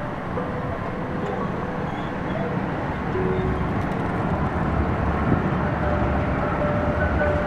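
A tram running on its rails, a steady rumble that grows a little louder toward the end, with a few short steady tones over it.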